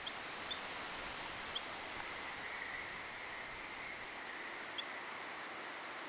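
Little grebe giving a few short, high call notes, spaced irregularly: three in the first two seconds and one more near the end, over a steady outdoor hiss.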